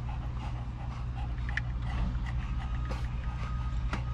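Dogs panting in a vehicle cabin: quick, irregular breathy puffs over a steady low hum. A short thin whine comes near the end.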